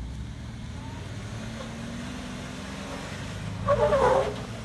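Jeep Wrangler JK engine running at low revs as the rig crawls up steep slickrock, a steady low drone. A brief louder burst cuts in about three and a half seconds in.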